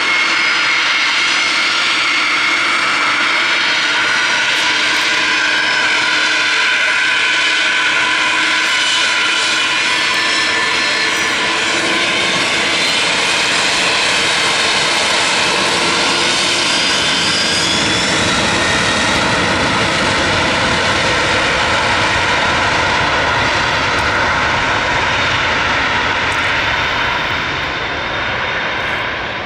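Boeing 747-400's four turbofan engines at takeoff power: a loud, steady jet roar with several whining tones over it. A deeper rumble builds in about two-thirds of the way through as the jet rolls down the runway.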